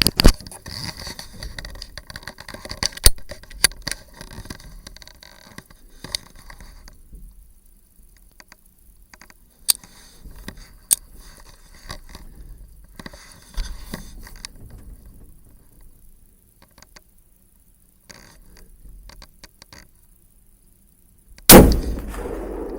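Scattered sharp clicks and knocks of gear being handled in a hunting shack, then near the end a single loud rifle shot at a coyote, with a long ringing tail.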